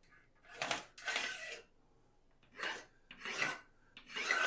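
A line being drawn along a spirit level on a sheetrock wall: about five short, scratchy strokes with brief pauses between them.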